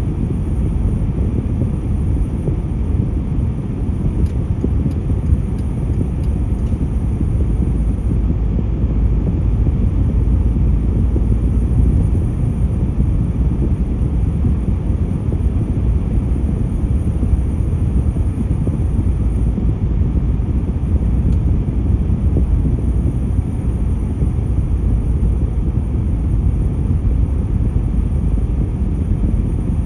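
Steady low rumble of a car cruising at expressway speed, heard from inside the cabin: road and tyre noise with the engine beneath it.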